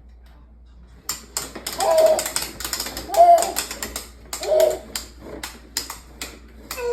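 A string of sharp mechanical clicks, irregular, starting about a second in, with a few short pitched, voice-like sounds between them.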